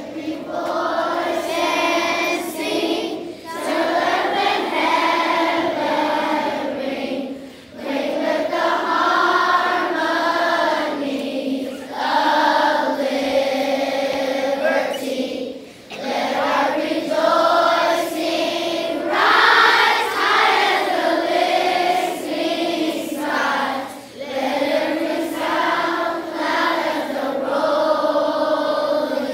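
A large crowd of elementary-school children singing together as a choir in a big gym, in sung phrases of a few seconds with held notes and short breaks between them.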